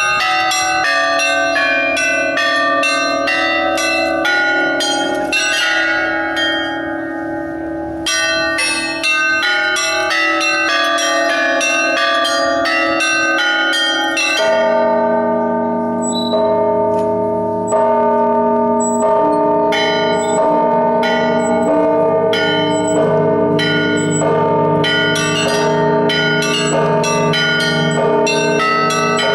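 Russian Orthodox Easter peal (zvon) on a set of church bells played by a single ringer: fast strikes on small high bells over the ringing of larger ones. About fourteen seconds in, deeper bells join and the peal grows fuller.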